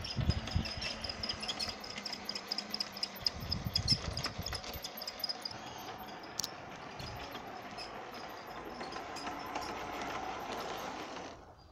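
Lionel G-scale Thomas the Tank Engine toy train running on its plastic track: a steady motor whir with rapid, regular ticking from the wheels and gears, the ticking fading after the first few seconds. Low thumps in the first few seconds, and the sound cuts off suddenly near the end.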